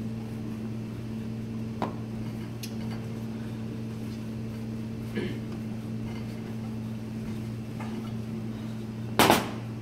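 Steady electrical hum of kitchen equipment, with faint knocks of a wooden rolling pin rolling out pasta dough on a plastic cutting board. A louder short thump comes about nine seconds in.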